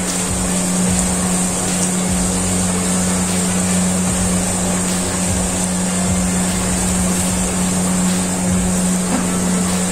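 Sliced onions and ginger-garlic paste sizzling steadily in hot oil in a pot while a wooden spoon stirs them, over a steady low hum.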